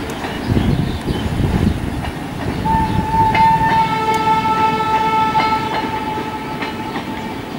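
Express passenger coaches rumbling and clattering past over the rail joints. About three seconds in, a train horn sounds one long steady blast of several tones, lasting about four and a half seconds.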